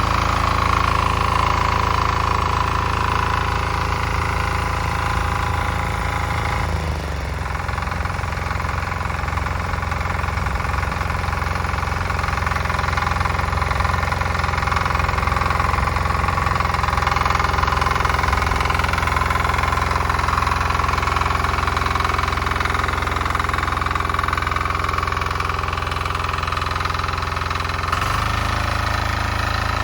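Weima single-cylinder diesel walk-behind tractor running steadily as it tills greenhouse soil with its rotary tines. The engine note shifts about a quarter of the way in and again near the end, as the load on it changes.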